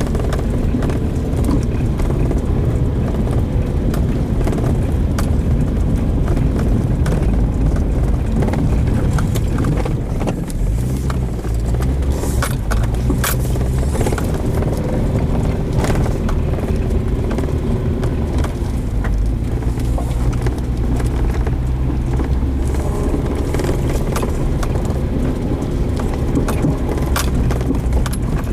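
A motor vehicle driving, its engine running steadily with the engine note shifting about ten seconds in, with scattered clicks and knocks.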